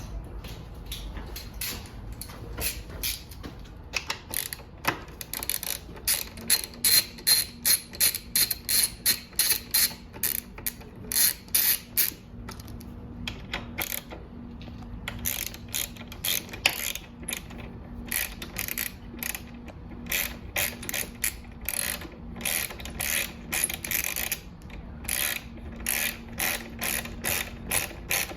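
Ratchet wrench with a 5 mm Allen bit clicking in quick runs of strokes as motorcycle seat bolts are backed out. The clicks are loudest through the first half and lighter after that.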